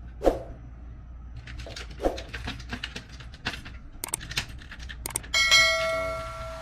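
Scattered small clicks and taps, typical of plastic printer parts being handled and fitted during a laser printer repair. Near the end a held musical note comes in.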